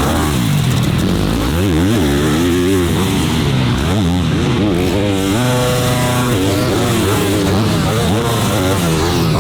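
Dirt bike engine running hard, its pitch rising and falling again and again as it revs up and shifts, with a short steadier stretch in the middle.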